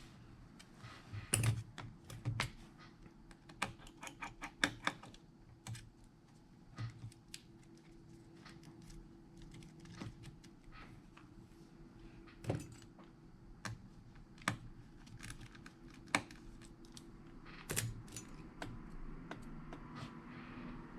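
Small hand tools clicking and tapping on an iPhone's parts during disassembly: irregular sharp clicks, bunched in quick runs in the first few seconds and then single taps every second or two, over a faint steady hum.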